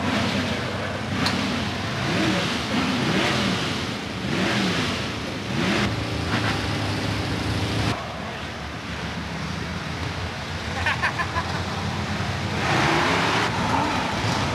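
Drag-race car engine being revved in short blips, its pitch rising and falling about once a second, then holding steadier. After a cut about eight seconds in the sound is quieter, with a brief clatter and a rush of noise near the end.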